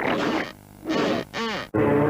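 Cartoon sound effects in a logo jingle: a few short pitched sounds that bend up and down. About three-quarters of the way through they cut off abruptly into music.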